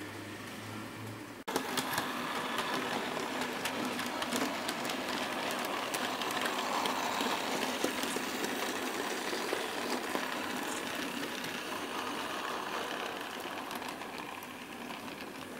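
OO-gauge model train running past close by: the small electric motor whirring and the wheels on the track giving many small clicks. It starts suddenly about a second and a half in, grows louder toward the middle and fades near the end.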